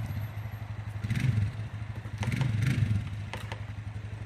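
An engine running steadily, surging louder a couple of times, with a few sharp knocks and clatter.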